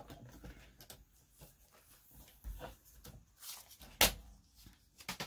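Quiet handling of a sliding paper trimmer and paper: light rustles and taps, with one sharp click about four seconds in.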